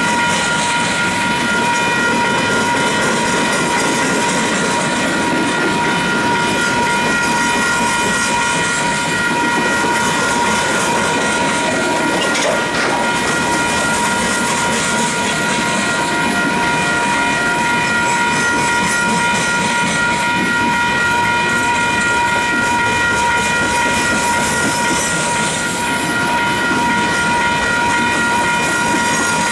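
Freight train of refrigerated boxcars rolling steadily past, the wheels clattering over the rail joints, with a steady high ringing tone held over the rumble.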